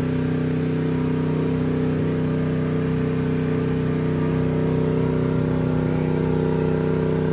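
Husqvarna PW3200 gasoline pressure washer's small engine running at a steady speed under load, with the hiss of the spray as the foam cannon is used.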